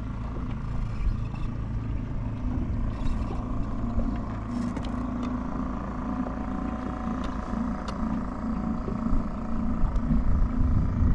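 A boat's motor running with a steady low hum, over a low rumble of wind and choppy water, with a few faint clicks.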